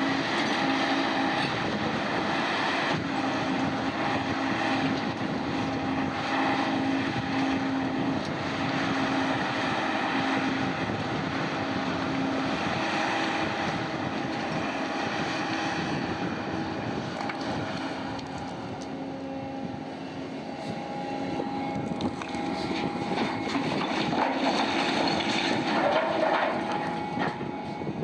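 Heavy diesel machinery running steadily with a constant engine drone and hum. It eases off about two-thirds through, then grows louder and busier near the end.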